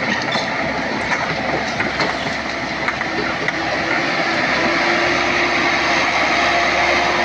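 Komatsu PC78UU excavator working: engine and hydraulics running steadily under load, with scattered metallic knocks. A steady whine joins about two-thirds of the way in as the sound grows slightly louder.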